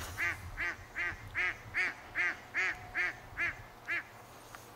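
A duck quacking in a steady series, about ten quacks at a little over two a second, stopping about four seconds in.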